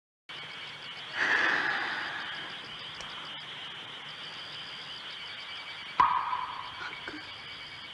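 Hissy audio of an old film's soundtrack, with a swell of noise about a second in that fades away and a second, sharper swell about six seconds in.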